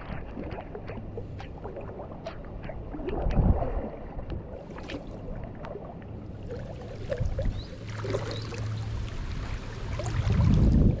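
Water sloshing and splashing as feet wade through a flooded paddy field, with wind rumbling on the microphone. Two louder surges of sloshing come about three and a half seconds in and near the end.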